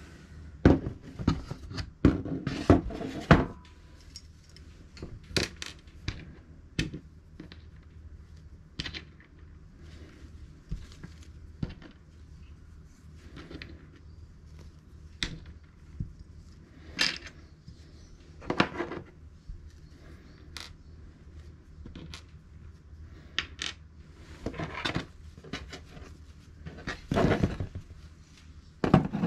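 Small metal screws and parts from a disassembled transistor radio clicking and clinking as they are picked up and set down one at a time on a workbench. The clicks come thick in the first few seconds, then as scattered single taps, with a louder clatter near the end as the radio's metal case is handled.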